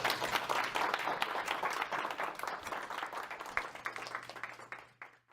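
Audience applauding, dense clapping that thins out and fades over the last second before cutting off.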